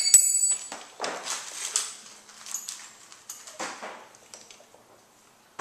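Metal hand tools and axle hardware clinking: one sharp ringing clink at the start, then scattered lighter clicks and rattles as they are handled, dying away near the end.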